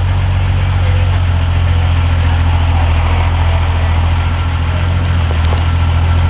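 Mercedes-Benz Unimog U1700L's six-cylinder diesel engine running steadily, a loud deep drone.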